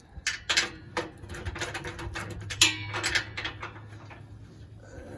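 Clinks and knocks of metal parts being handled as a blower's cover guard and nuts are fitted: a quick run of sharp knocks in the first three seconds, then only a few. A low steady hum runs underneath.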